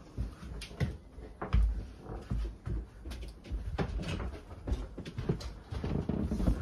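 Footsteps and irregular knocks and thumps of someone walking through a room to the top of a staircase, with the rustle of a handheld phone.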